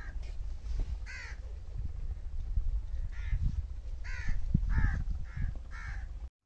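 Crows cawing: about seven short caws, spaced about a second apart, closer together toward the end.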